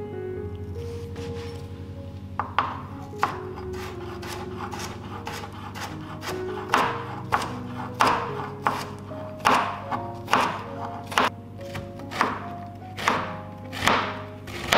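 Santoku knife slicing and julienning a Korean radish, each cut ending in a sharp knock on the cutting board. There are a few separate cuts at first, then from about six seconds in a steady rhythm of about two cuts a second. Background music plays throughout.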